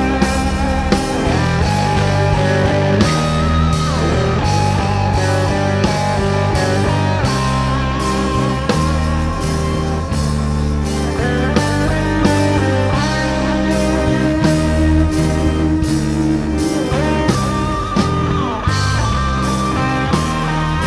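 Live rock band playing: electric guitar, electric bass and drum kit, with sustained bass and guitar notes over regular drum hits.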